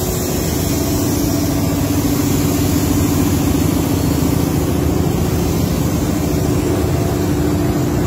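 A diesel locomotive's engine idling, a steady, even engine hum with one held tone that does not change.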